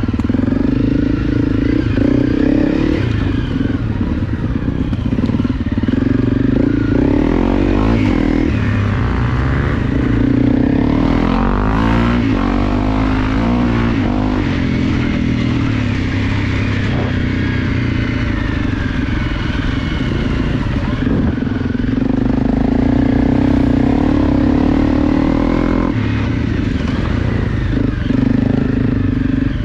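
Honda CRF250 trail motorcycle's single-cylinder four-stroke engine running under way on a dirt track, heard close from on the bike. The engine note rises and falls with the throttle, with a few short lifts off around a third of the way through and again later on.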